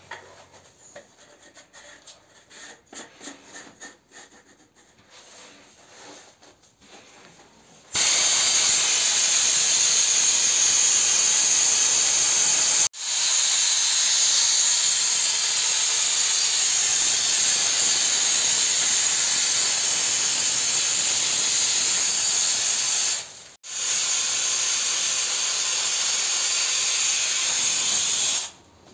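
Hand-held gravity-feed sandblasting gun blasting abrasive with compressed air: a loud, steady hiss that starts about eight seconds in, breaks off twice for a moment, and stops just before the end. Before it there are only faint handling knocks.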